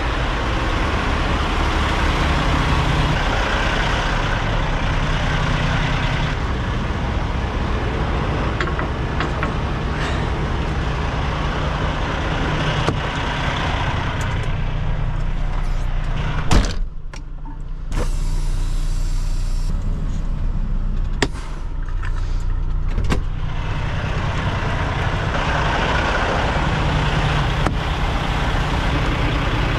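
Semi-truck tractor's diesel engine idling steadily. A sharp thud comes about halfway through, the idle sounds muffled for a second or so afterwards, and a few light clicks follow.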